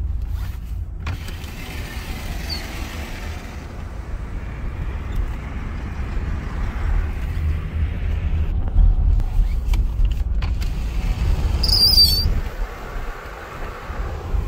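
Car cabin noise while driving slowly on an icy highway: a steady low rumble of tyres and engine, with a few light knocks and a brief high squeak near the end.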